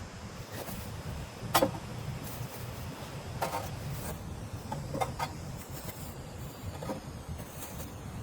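Steady low rumble with a scattered handful of short, sharp knocks and taps, the loudest about a second and a half in.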